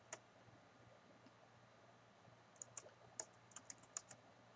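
Near silence broken by light clicks from working a computer to zoom the webcam in: one click just after the start, then a quick run of about ten faint clicks around three to four seconds in.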